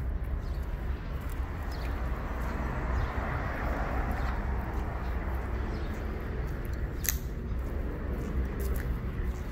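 Footsteps on gritty asphalt over a low steady outdoor rumble, with a swell of noise around three to four seconds in and one sharp click about seven seconds in.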